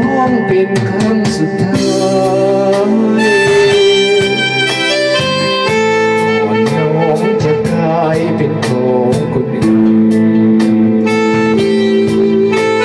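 Live band music: a Korg keyboard playing long held notes and an electric guitar over a steady drum beat, with a man singing into the microphone.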